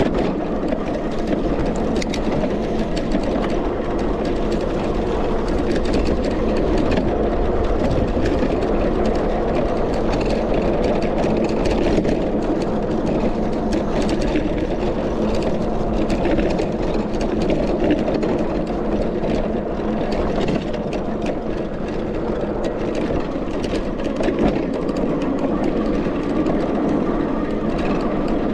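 Steady rumble of wind and tyres as a Sondors MadMods electric bike rides over a rough grassy field, with scattered short rattles and clicks from bumps.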